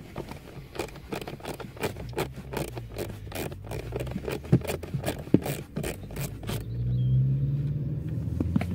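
Socket ratchet clicking in quick, irregular runs as a small 5 mm bolt is undone. A steady low hum comes in for the last couple of seconds.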